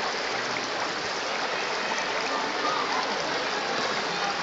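Shallow stream water running steadily over a stony bed close to the microphone: an even, unbroken rush.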